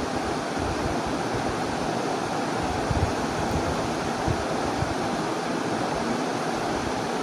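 Duck curry sizzling and bubbling steadily in a wok as the meat is fried down with its spices. A few soft knocks come around the middle as a glass lid is set on the wok.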